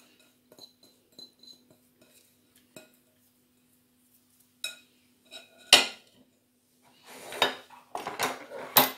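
China bowl clinking against a stainless steel pot as chopped onion is scraped out of it by hand: light clicks at first, then one sharp knock of china on metal or china about two-thirds of the way through, followed by scraping and clinking as the bowl is set down. A faint steady hum sits underneath.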